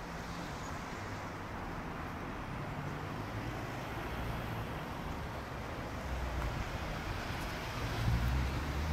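Road traffic noise: a steady hum of cars on a nearby street, growing a little louder near the end.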